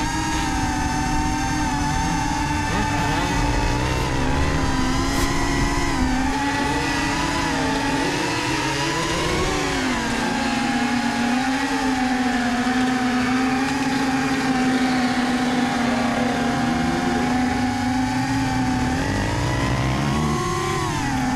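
Quadcopter drone's propellers and motors humming steadily, heard from its own onboard camera, the pitch dipping about halfway through and rising again near the end as it manoeuvres, over a low rumble of wind.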